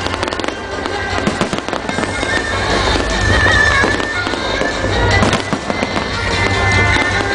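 Aerial fireworks bursting and crackling in rapid succession, many sharp reports over a continuous rumble, with music playing along with the display.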